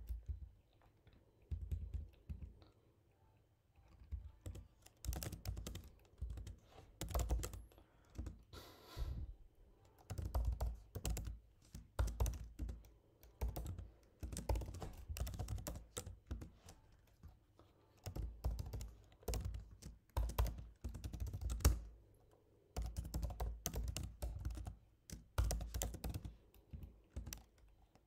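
Typing on a computer keyboard: bursts of keystrokes separated by short pauses.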